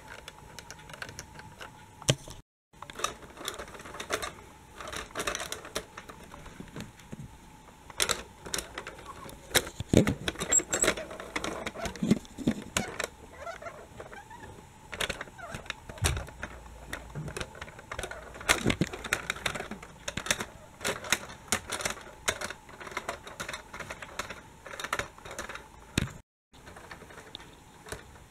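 Plastic wheels of a toy regional train clicking and rattling irregularly as it is pushed by hand along plastic Lego-style track.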